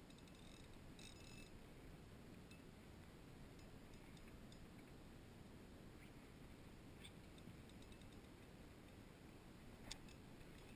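Near silence: a faint low rumble, with a few scattered faint clicks and one sharper click near the end.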